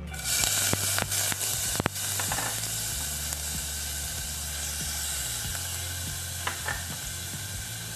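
Chopped onion dropped into hot cooking oil in a nonstick pot, sizzling loudly at once, with a few sharp taps in the first two seconds. The sizzle then settles into a steady frying hiss as the onion sautés, with a couple of small crackles about six and a half seconds in as the garlic goes in.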